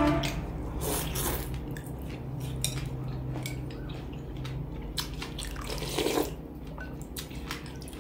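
Eating noodle soup: wet slurping of noodles and broth, with small clicks of a spoon and chopsticks against the bowl.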